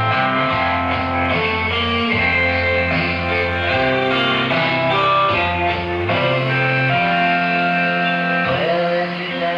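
Guitar music with a moving bass line, played by an Imperial Stassfurt 60GWK tube radio console through its own loudspeaker. The top end is dulled, as broadcast radio reception sounds. Near the end the music breaks briefly and wavers as shortwave reception shifts.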